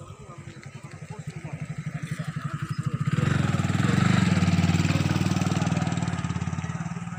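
A small vehicle's engine passing close by, with a fast, even pulse of firing strokes: it grows louder over the first three seconds, is loudest around the middle, then fades away.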